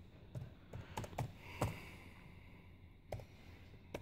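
Faint, irregular keystrokes on a computer keyboard as a short message is typed, in small runs with a pause of over a second in the middle.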